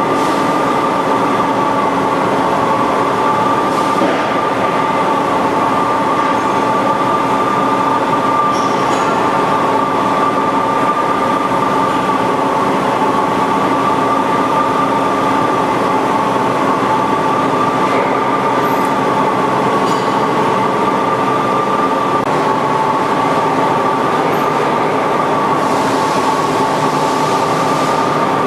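Fortune V-Turn 46 CNC lathe running: a steady mechanical whine, two high tones that waver slightly in pitch over a lower even hum.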